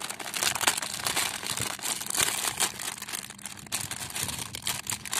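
Toy packaging crinkling and rustling as it is handled and torn open, a dense run of small crackles.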